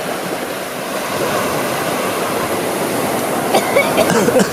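Surf washing onto a beach: a steady rush of water that grows a little louder, with voices starting near the end.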